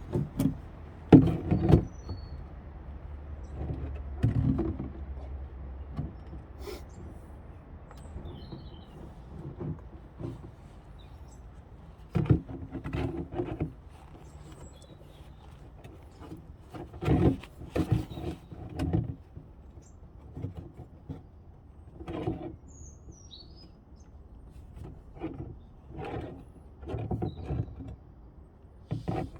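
Irregular knocks and clatters, some in short clusters, with a few faint bird chirps.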